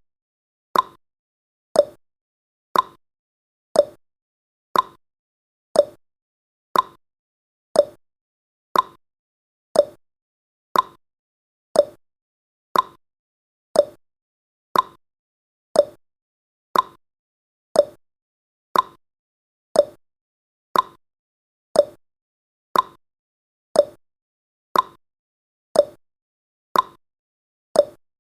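Countdown timer's ticking sound effect: a short, sharp clock-like tick once a second, evenly spaced and unchanging.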